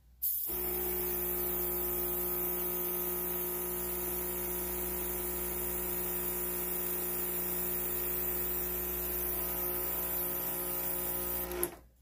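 Airbrush compressor running with a steady electric hum and the hiss of air through the airbrush. It kicks on just after the start and shuts off near the end. It stands on a metal shelf and sounds terrible.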